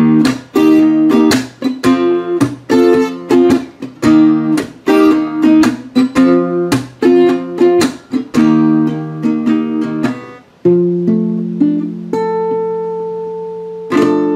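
Acoustic guitar strumming chords in a steady rhythm. About ten seconds in the strumming stops and a few chords are struck and left to ring, with one more chord near the end ringing out: the song's instrumental close.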